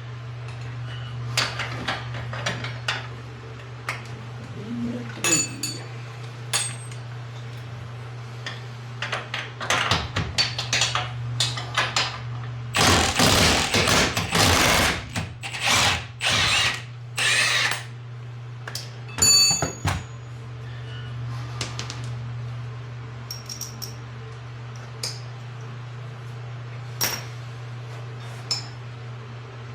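Impact wrench run in several short bursts about halfway through, on the nuts and bolts of a Can-Am Maverick X3's rear suspension knuckle, between scattered clinks and knocks of tools and parts. A steady low hum runs underneath.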